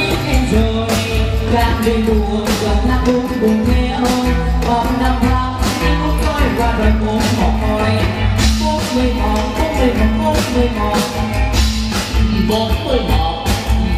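Live band music with a singer's voice over it and a steady drum beat.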